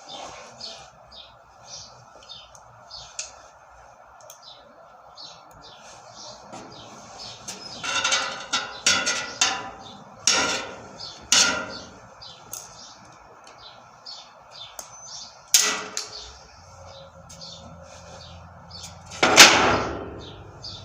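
Small birds chirping over and over, with a series of loud sharp knocks about midway, another single knock later, and one louder knock near the end that rings on for about a second.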